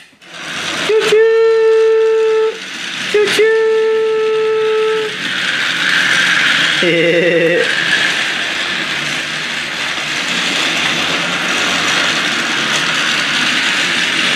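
Battery toy train set: an electronic horn gives two long steady toots, each started by a click, then the train's small motor whirs steadily as it runs around plastic track.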